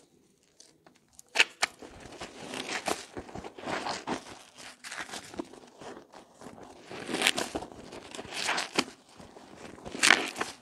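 Soaked soap squeezed and kneaded by hand in thick lather: wet squelches and crackling foam coming irregularly, nearly quiet for the first second, with the loudest squelches about a second and a half in, around seven seconds and near the end.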